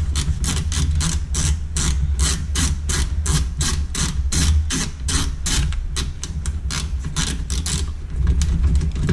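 Hand ratchet with a 10 mm socket clicking steadily, about four to five clicks a second, as it backs out an old radiator fan mounting bolt. A steady low hum runs underneath.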